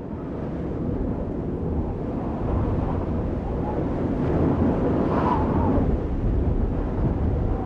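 Indoor crowd noise after the music stops: a steady low rumble of the audience, with a few faint calls or whoops about five seconds in.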